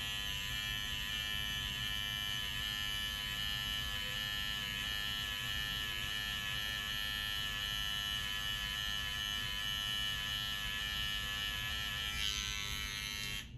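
Electric hair clippers running with a steady high buzz while lining up a hairline.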